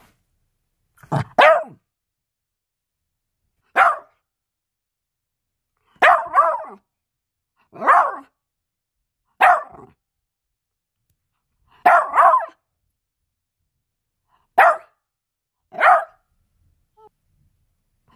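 Small dog barking: about eight short, single barks spaced a second or two apart, a couple of them doubled, with quiet gaps between.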